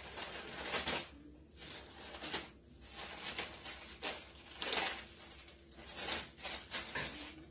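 Plastic oven-roasting bag crinkling and rustling as it is cut and pulled open, in about five short bouts with brief pauses between.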